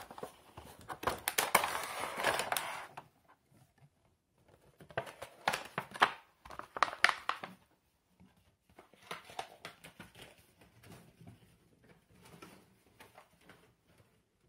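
A Funko Pop cardboard box and its clear plastic insert being handled and pulled apart, rustling and crinkling. It is loudest in the first three seconds and again about five to seven seconds in, then softer rustles follow.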